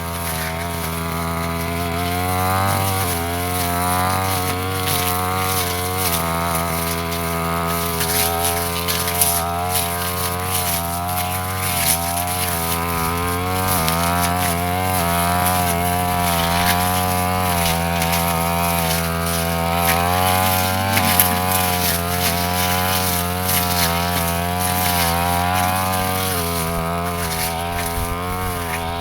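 Petrol brush cutter running at high speed while cutting grass, its engine pitch wavering up and down under load.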